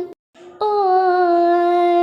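Quran recitation chanted in a high, melodic voice: a long held note cuts off, there is a brief pause of about half a second, then a new note begins and is held long and steady with slight ornamentation.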